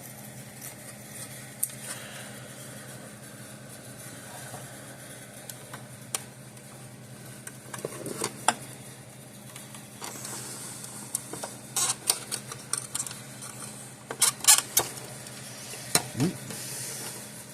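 Small clicks, taps and rattles of hands working wires and spade connectors, busiest in the second half, over a steady low hum.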